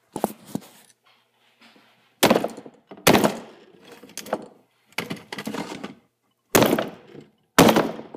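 Router case being struck hard, about seven loud blows at irregular intervals, some followed by a brief clatter, as it is bashed open to get the circuit board out.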